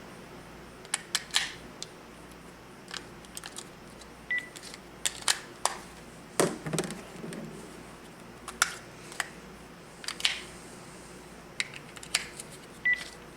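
Scattered plastic clicks and taps of a cordless phone handset being handled and its keys pressed, with two short high beeps from the phone, one about four seconds in and one near the end.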